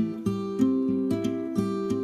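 Background music: acoustic guitar playing a steady rhythm of plucked and strummed chords.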